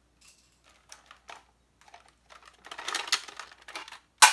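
Plastic parts of a Nerf Longstrike blaster clicking and rattling as it is handled: a few faint clicks, then a busy patch of clatter, ending in one sharp, loud click near the end.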